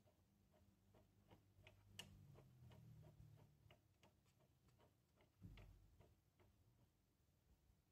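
Near silence, with faint irregular ticking, about two or three ticks a second, over a low hum that swells twice.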